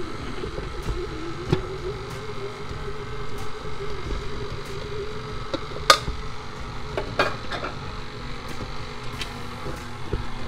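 KitchenAid Artisan stand mixer running on low speed, its flat beater working a stiff, sticky dough: a steady motor hum with a few sharp clicks, the loudest about six seconds in.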